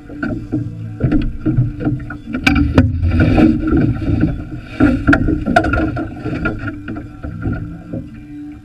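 Knocks and clatter on a small fibreglass boat as a person moves about the deck and handles fishing rods. The sharpest knocks come in the middle, over a steady hum.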